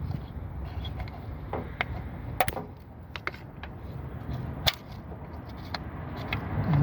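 Scattered light clicks and knocks of hand tools at work on the car, over a low steady rumble.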